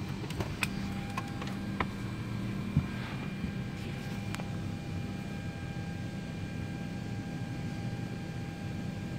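Steady cabin ventilation hum and hiss inside a Boeing 787 airliner, with a few fixed humming tones. A handful of sharp clicks come in the first two seconds, and one louder low knock comes about three seconds in.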